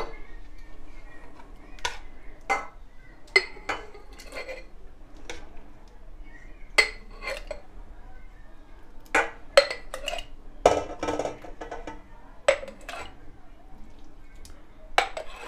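Spoon clinking and knocking against a stainless steel pot and a glass jar as thick tomato and pepper sauce is spooned into jars. Scattered sharp clinks, about one a second, with a brief scrape a little past the middle.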